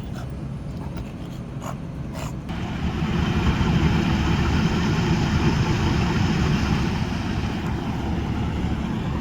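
A vehicle engine rumbling close by, getting louder about two and a half seconds in and easing off again near the end. There are a few light clicks in the first couple of seconds.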